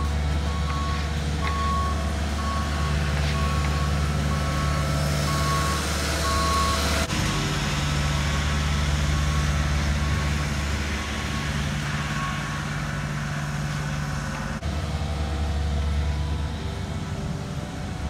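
Diesel engines of asphalt paving machines, a paver fed by a dump truck and a roller, running steadily. A backup alarm beeps repeatedly, a little faster than once a second, and fades out about ten seconds in.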